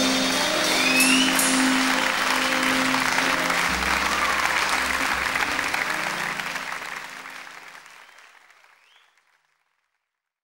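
Audience applauding over the last held notes of a live rock band, the whole sound fading out to silence in the last few seconds.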